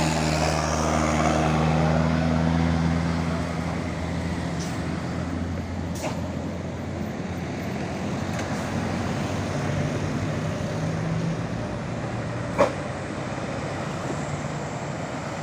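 Tour bus diesel engine running as the bus passes, a steady low engine note that is loudest in the first few seconds and then eases into road noise. A single sharp click about twelve and a half seconds in.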